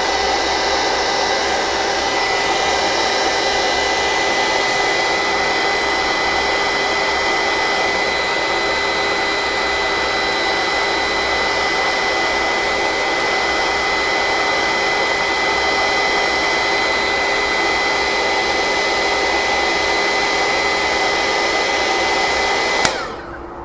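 Handheld heat gun blowing a steady rush of hot air with a motor whine, drying a watercolour wash. It winds down and cuts off near the end.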